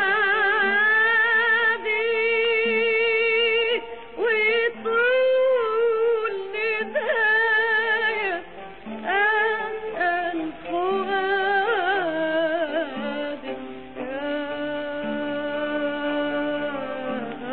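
A woman singing an Egyptian Arabic song in long, ornamented phrases with a strong vibrato, over instrumental accompaniment holding low notes.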